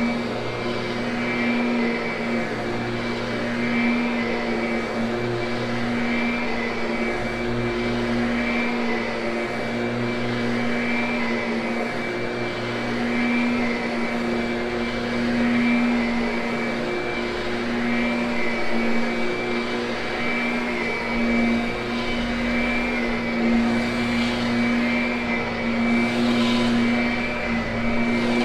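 Kirby upright vacuum running steadily, a constant motor hum with a high whine over it, as it post-vacuums and grooms a freshly cleaned Triexta carpet.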